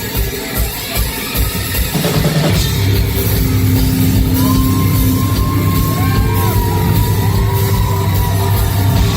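Loud live rock music through a club PA during a bass guitar solo. Evenly spaced low thumps, two or three a second, give way about two seconds in to a heavy, sustained bass.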